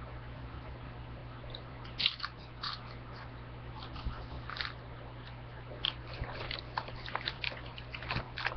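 Crunchy chips being bitten and chewed close to the microphone: sharp crunches about two seconds in and again near five seconds, then a quicker run of crunches near the end. A steady low hum runs underneath.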